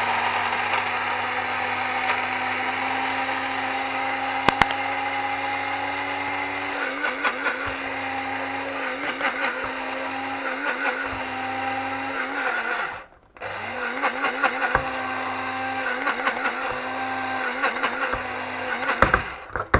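Electric blade coffee grinder running, milling coarse oat flakes, cloves and vanilla sugar into a fine flour. Its motor tone wavers from about a third of the way in. The motor cuts out briefly about two-thirds of the way through, starts again, and stops at the end.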